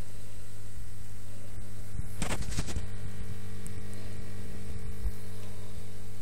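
Steady low electrical hum, with a short crackle a little over two seconds in.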